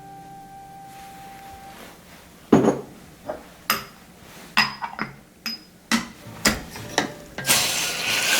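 Sharp metal clinks and knocks, about ten in quick irregular succession, from espresso equipment being handled on a La Pavoni lever espresso machine, some ringing briefly; a loud hiss starts near the end. Soft background music plays for the first two seconds.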